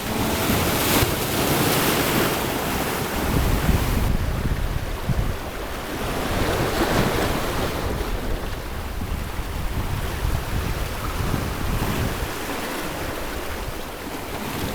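Mediterranean surf: waves breaking and washing on the shore, swelling and fading every few seconds, with wind rumbling on the microphone.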